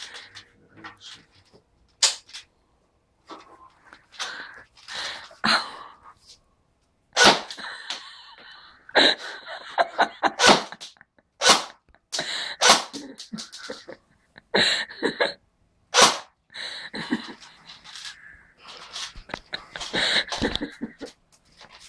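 Replica BB gun firing about a dozen sharp pops at irregular intervals, with short vocal sounds between the shots.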